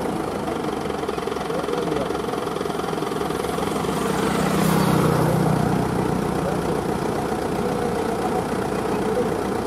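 Diesel engine of a loaded Mitsubishi Fuso 220PS 6x4 cargo truck running as it approaches, its low drone swelling to a peak about halfway through and then easing back to a steady engine sound.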